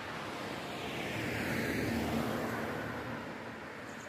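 A road vehicle passing by: a rush of tyre and engine noise that swells to a peak about two seconds in and fades away.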